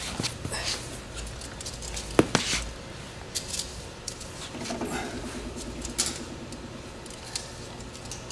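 A steel tape measure being handled and stretched out: scattered clicks and knocks, with a sharp click about two seconds in and a low rattle from about four and a half to seven seconds.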